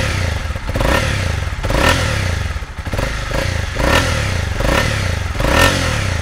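Honda CB300R's 286cc single-cylinder four-stroke engine, warmed up, running through its stock exhaust and revved in short throttle blips about once a second, each rising and falling. Really throaty.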